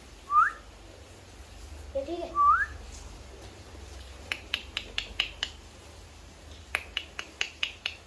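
Alexandrine parakeets calling: two short rising whistles in the first few seconds, then two quick runs of short, sharp clicking chirps, one around the middle and one near the end.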